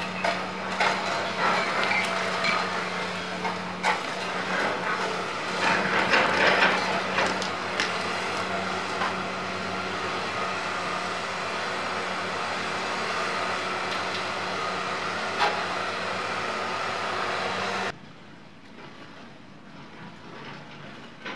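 Heavy construction machinery running steadily with a constant low hum, with scattered knocks and clanks. It cuts off abruptly near the end, leaving a much quieter background.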